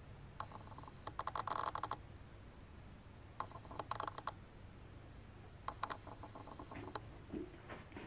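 Camera lens autofocus motor whirring and clicking in three short runs while hunting for focus; the lens is noticeably loud.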